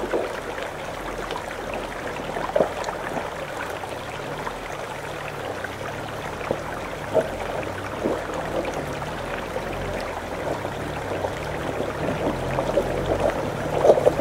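Meltwater brook trickling over stones on a rocky track, with small clicks and splashes, and the low hum of a UAZ Patriot's engine as the SUV creeps closer, growing louder near the end.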